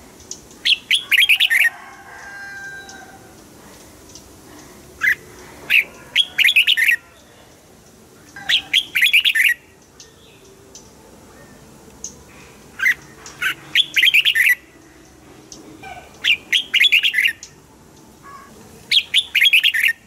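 Red-whiskered bulbul singing: six short, loud phrases of quick notes, a few seconds apart.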